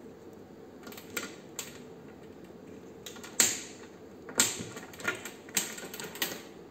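Jumper-cable banana plugs and an oscilloscope probe being handled and plugged into a trainer panel: about seven sharp, scattered clicks and clacks, the loudest about three and a half seconds in, over a faint low hum.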